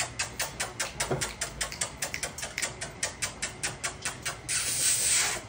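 Rapid, even clicking, about six clicks a second, from puppies licking and nosing empty steel food bowls on the crate floor. Near the end a louder scraping rustle lasts about a second.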